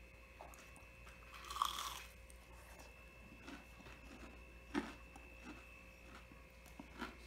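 A bite into a crisp, deep-browned breaded calamari ring about one and a half seconds in, the loudest sound, then chewing with scattered small crunches and a couple of sharper crackles.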